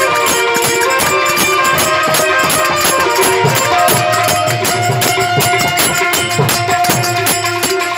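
Live bhajan music: a harmonium playing sustained, reedy melody notes, with tabla and fast, evenly repeating percussion strokes keeping the rhythm.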